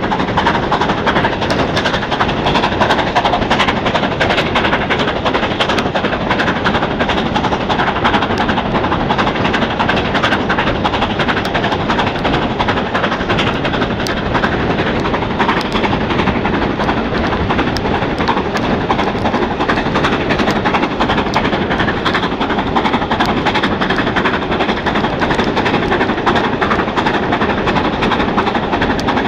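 BR Standard Class 7 'Britannia' steam locomotive 70013 Oliver Cromwell working hard at the head of its train, heard from a carriage window with the rush of the train's passage on the microphone. Through it runs a constant rapid clicking: char thrown out of the smokebox pelting the camera.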